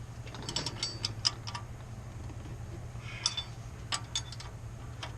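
Sharp metallic clicks and clinks: a quick run of them about half a second in, then a few more spaced out toward the end. They come from a new front wheel hub bearing assembly and its bolts being lined up and fitted into the steering knuckle.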